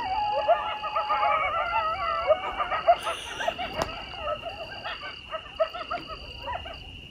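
Two coyote packs howling and yipping together, many wavering cries overlapping in a chorus that thins out and dies away near the end. A steady insect trill runs underneath.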